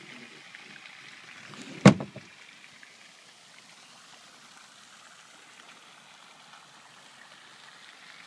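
One sharp thump about two seconds in, over a faint steady hiss of background noise.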